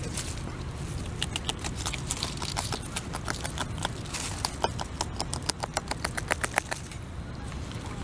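A North American beaver chewing leaves and twigs up close: a run of rapid, crisp crunches, several a second, starting about a second in and stopping near the end, over a steady low rumble.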